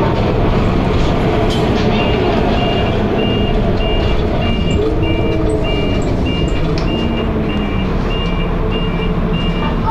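Dennis Arrow bus's diesel engine running, heard from inside the bus, with a high electronic beep starting about two seconds in and repeating steadily about twice a second.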